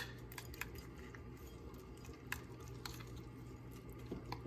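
A metal spoon stirring a raw egg into a wet mix of oats and chopped vegetables in a bowl: soft squishing with a few light clinks of the spoon against the bowl, over a steady low hum.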